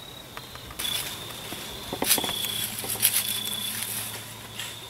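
Dry leaf litter crunching and rustling in irregular bursts, starting about a second in, with a few sharper cracks. Crickets trill steadily underneath.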